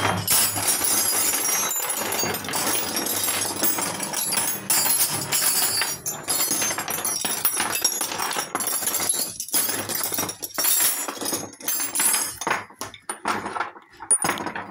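Steel spanners and socket pieces clinking and clattering against each other as they are handled and sorted on a wooden workbench, with a few short pauses near the end.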